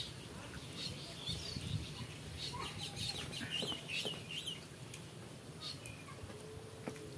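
Birds chirping in quick, squeaky bursts, about a second in and again from about two and a half to four and a half seconds, with a few faint clicks of fingers on steel plates.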